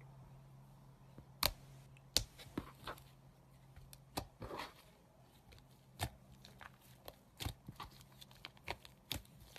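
Slime mixed with shaving foam being squeezed and worked by hand, giving irregular sharp clicks and pops, with a short rougher crackling stretch about halfway through. A steady low hum runs underneath.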